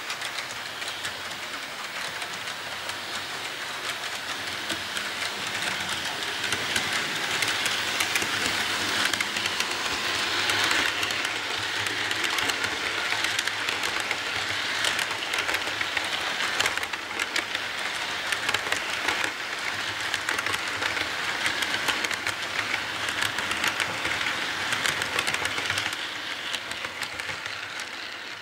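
HO-scale model freight cars rolling past on the track: a steady rushing rattle of the wheels on the rails, with fast clicking over the rail joints, a little louder from about eight seconds in.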